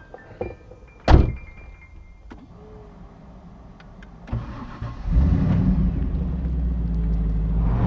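A sharp clunk about a second in, then about five seconds in the 6.2-litre E-ROD V8 of a Revology Mustang is started and settles into a steady low idle.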